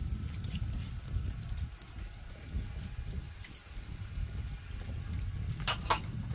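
Steady rain falling, over a low rumble, with two sharp clicks close together near the end.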